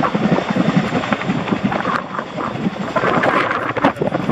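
RAF Chinook tandem-rotor helicopter in flight: the rapid, pulsing chop of its twin rotors' blade slap, the 'wokka'.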